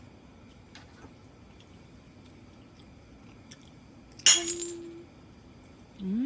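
A glass clinks once, sharply, and rings briefly with a single clear tone. Near the end a cat meows, its pitch rising and then falling.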